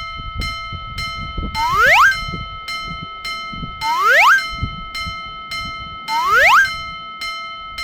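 Japanese railroad crossing warning bell ringing at about two strikes a second, its tones held between strikes. A rising swoop sound effect repeats about every two seconds over it and is the loudest part, with a low rumble underneath.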